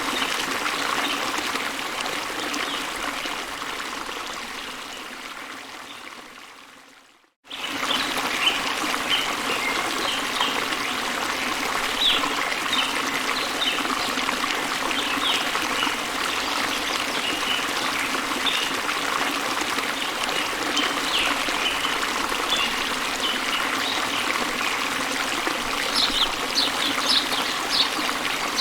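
A waterfall rushing steadily with small birds chirping over it. The water fades to silence about seven seconds in, then cuts back in abruptly. The chirps come in short notes throughout, with a quick run of them near the end.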